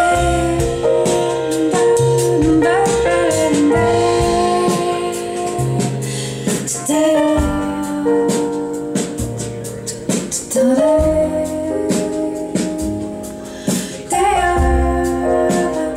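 A female vocal song with band backing, sung lines over bass and drums, played back loudly over a high-end hi-fi system of Wilson Alexandria XLF loudspeakers.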